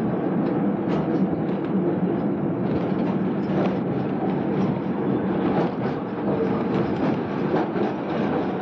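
Tram running along the rails: a steady running noise of wheels on track with frequent light clicks.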